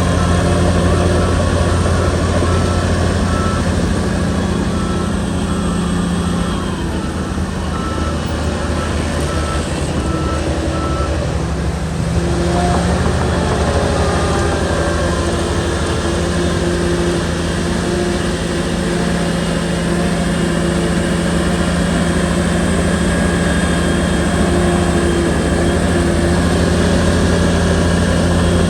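Shantui bulldozer's diesel engine running steadily under load, with its reversing alarm beeping in even pulses for about the first eleven seconds. The engine note sags around the middle and picks up again about twelve seconds in.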